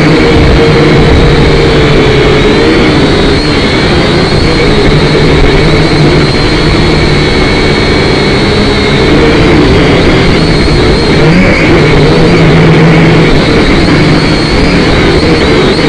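Syma X5C quadcopter's four small motors and propellers buzzing loudly in flight, picked up by the drone's own onboard camera microphone. The whine holds steady, its pitch wavering slightly.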